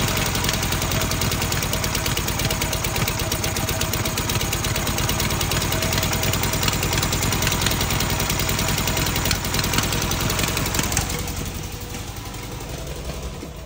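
Fiat 126p BIS's water-cooled two-cylinder engine running with a fast, even pulsing beat and something knocking in it, which the owner can't place. It fades out over the last two seconds or so.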